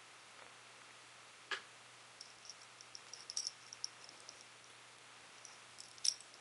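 A sharp click about a second and a half in, then a scatter of faint, light high-pitched ticks and clicks, with a brighter little cluster near the end, over a steady low hum.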